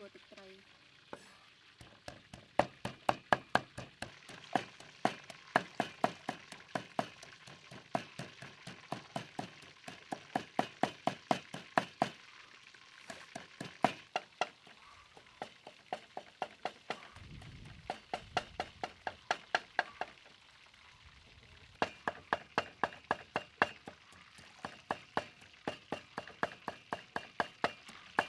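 Cleaver chopping red chilies and garlic on a thick wooden chopping block: rapid knocks, about four strokes a second, in runs broken by short pauses.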